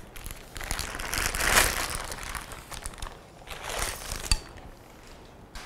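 Clear plastic bag crinkling as a monitor stand's base is pulled out of it: a long spell of rustling from about half a second in, then a shorter one a little after three and a half seconds in.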